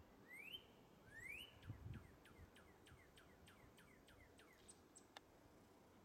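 Male northern cardinal singing: two rising slurred whistles, then a quick run of down-slurred notes at about four a second.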